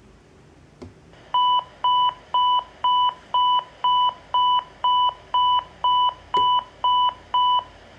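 Radio scanner receiving an alert tone on an airport security channel: thirteen short, even electronic beeps, about two a second, heard through the scanner's speaker, with a click about a second in. The tone is a pre-alert ahead of a dispatch call.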